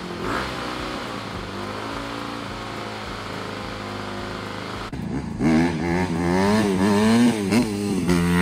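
Honda CRF150R's single-cylinder four-stroke engine idling steadily, freshly filled with oil. About five seconds in it changes to the bike being ridden, the engine revving up and dropping back again and again.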